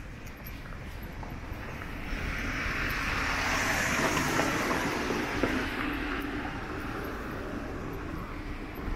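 A car passing close by, its tyre and engine noise swelling to a peak about four seconds in and then fading away.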